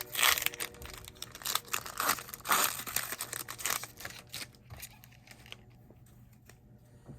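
Trading-card pack wrapper being torn open and crinkled by hand, in a run of loud irregular rips and crackles over the first four seconds, then fainter rustling as the cards are handled.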